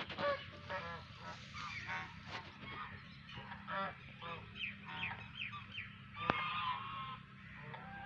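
A flock of white domestic geese honking: many short calls one after another and overlapping, some sliding down in pitch. A single sharp click sounds a little after six seconds.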